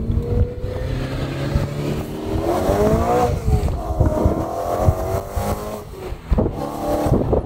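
A manual BMW E92 M3's 4.0-litre V8 accelerating through a straight-pipe exhaust. Its pitch climbs, dips briefly about three seconds in, then climbs again before it breaks up near the end.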